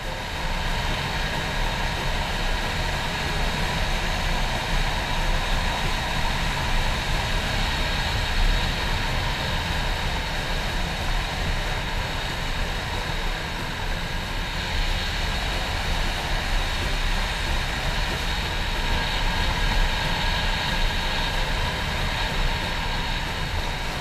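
A Kawasaki Ninja ZX-25R SE motorcycle under way, its 249 cc inline-four engine holding a steady drone under heavy wind noise on the microphone.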